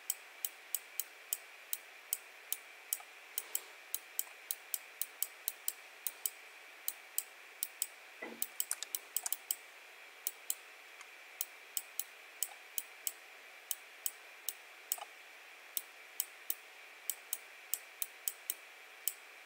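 Computer mouse clicking, short sharp clicks at an uneven pace of about two to three a second.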